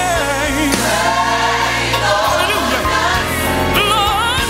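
Gospel song playing: a lead vocal sung with strong vibrato over held bass notes that shift a couple of times.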